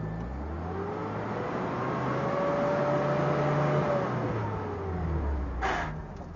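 Nissan pickup's engine revving hard while its rear wheels spin in soft sand, stuck: the pitch climbs for about three seconds, then falls away, over the rush of spinning tyres spraying sand. A short sharp sound near the end.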